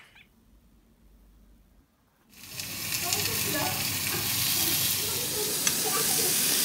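Near silence, then about two seconds in a loud, steady hiss starts abruptly, like food frying, with a few faint ticks in it.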